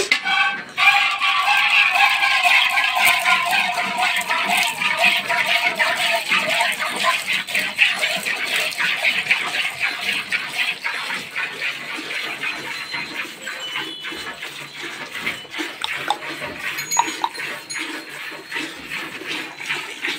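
Milk squirting by hand into a steel bucket: a fast, rhythmic spray and patter of alternating streams. During the first several seconds the bucket rings along with it, and the patter grows softer further on.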